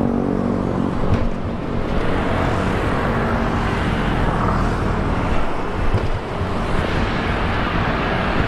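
Single-cylinder four-stroke engine of a Honda Revo bored up to 150cc, running through a CLD C7 aftermarket exhaust while riding. The pitched engine note near the start gives way to a steady rush of engine and road noise.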